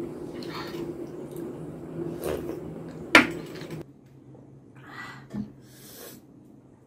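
Fingers wiping and scraping the last of the khichuri from a terracotta clay plate, with two sharp clicks against the clay around two and three seconds in, then quieter chewing and lip-smacking sounds.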